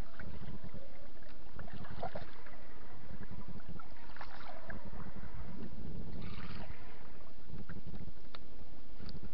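Wind rumbling on the microphone over a boat on open water, with scattered light splashes of lake water and two short ticks near the end as the spinnerbait comes up to the surface beside the boat.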